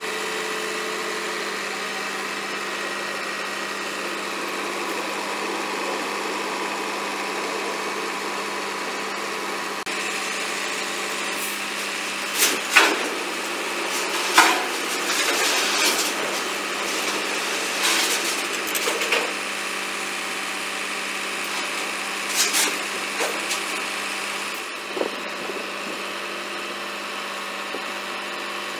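Volvo lorry's diesel engine running steadily to drive its lorry-mounted crane, with a steady whine. Several sharp clanks and knocks stand out over it, the loudest about halfway through, as steel weighbridge deck sections are lifted.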